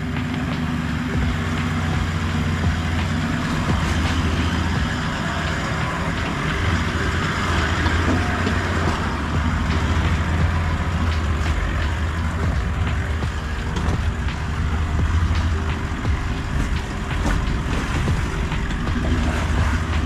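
Toyota LandCruiser 70 Series four-wheel drive engine running at low revs, steady with small rises and falls as it crawls a wet, rocky off-road climb.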